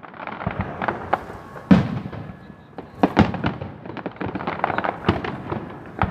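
Fireworks display: a run of sharp bangs and many smaller crackling bursts, with two heavier bangs about two and three seconds in.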